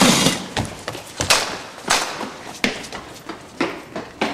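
Footsteps on a concrete floor, evenly spaced sharp knocks at about one and a half steps a second, opening with a louder thump.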